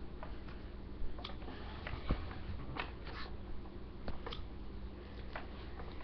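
Scattered clicks and rustles of handling close to the microphone as a child moves right in front of the camera, over a steady low electrical hum.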